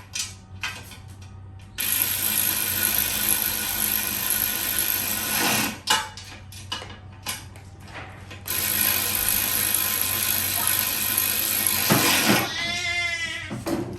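A power tool running in two long bursts of a few seconds each, with a short pause between them.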